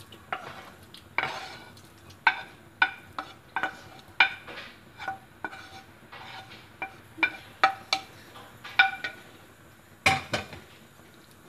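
A metal wire whisk scraping a sausage and vegetable mixture out of a non-stick frying pan into a ceramic bowl, knocking against the pan and bowl. It gives a run of irregular clinks, each ringing briefly, with a quick cluster near the end.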